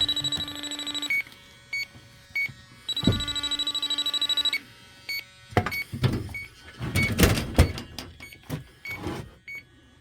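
Electronic refrigerant leak detector ticking with short high beeps about twice a second, breaking twice into a loud, rapidly pulsing alarm lasting about a second and a half each time. The alarm signals refrigerant leaking from the coil of an aging R22 system. Scattered knocks and rustling come from handling around the unit in the second half.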